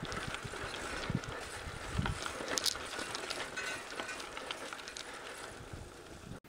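Bicycle riding over a dirt singletrack trail: tyres crunching over the loose surface, with scattered clicks and rattles from the bike and a few low wind thumps on the microphone. The sound drops away abruptly near the end.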